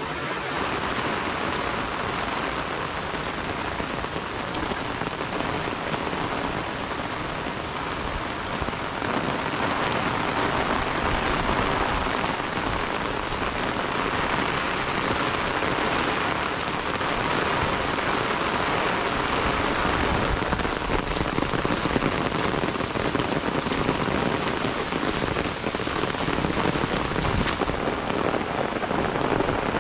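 Heavy rain falling steadily, a dense even hiss that gets a little louder about nine seconds in.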